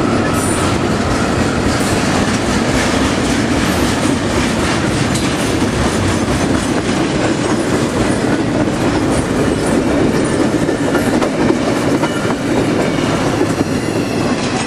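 CSX double-stack container train's cars rolling past: a steady loud rumble of steel wheels on rail with rapid clickety-clack over the joints. The last car goes by near the end.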